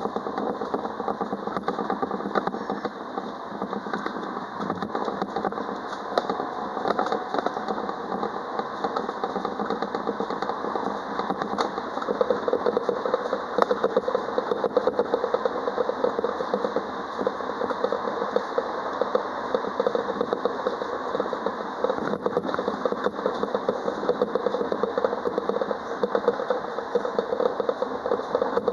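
Alstom Citadis Dualis tram-train running on the line, heard from the driving cab: a steady mechanical hum of traction gear and wheels on rail. A steady humming tone comes in about twelve seconds in and the noise grows slightly louder.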